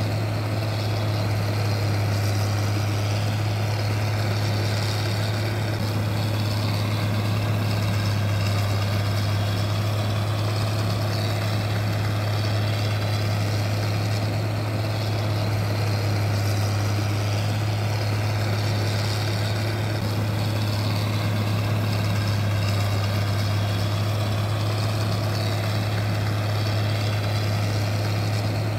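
Steady machine noise with a strong low hum that holds constant throughout, unchanging in pitch and level.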